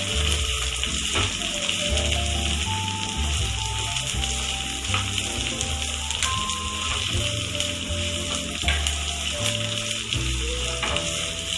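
Chopped onion and green capsicum sizzling in hot oil in a frying pan as they are stirred with a spatula. Background music with a changing bass line plays along.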